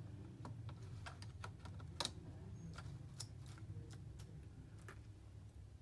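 Light, irregular plastic clicks and taps, with one sharper click about two seconds in, as a laptop's speaker assembly is pressed and seated into a new plastic palm-rest (C panel).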